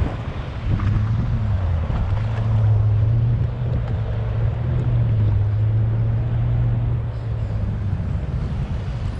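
Sea-Doo GTX personal watercraft engine, freshly rebuilt, running under way on the water with a steady low drone. The drone strengthens about a second in and eases back near the end, over wind and water noise.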